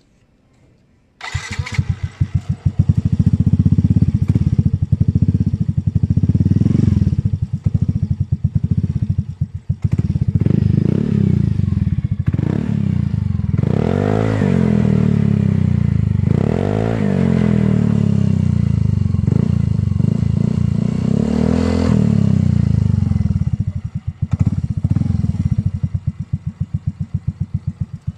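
Yamaha Mio i 125 scooter's single-cylinder engine through an Apido Powerpipe version 4 racing exhaust with no silencer: it starts about a second in and runs loud with choppy exhaust pops, is revved up and down several times, then settles back to a slower, uneven idle near the end.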